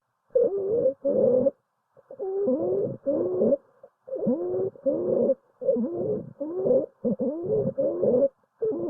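Recorded lung sounds with musical wheezing: pitched tones that glide up and down, coming in short bursts with brief gaps, about one to two a second.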